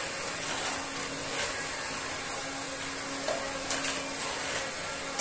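Rechargeable cordless vacuum cleaner running steadily: an even motor hum with a high hiss.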